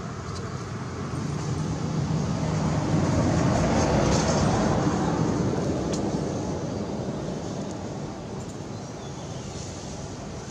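A road vehicle passing by: a steady rumble that swells, is loudest about four seconds in, and fades away again.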